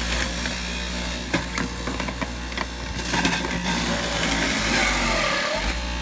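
Jack LaLanne's centrifugal juicer running with a steady motor hum while beets are shredded in it, with scattered crunching and rattling. About five seconds in, the motor briefly bogs down under the load and picks back up.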